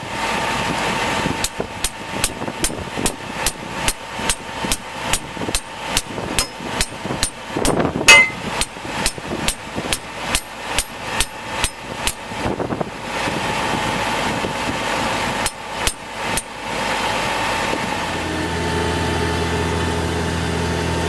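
Hammer blows on a metal stake being driven into the ground, about three strikes a second, over a New Holland T7060 tractor's engine running steadily. The hammering stops about twelve seconds in, with a few more blows near sixteen seconds, and near the end the tractor engine is heard from inside the cab.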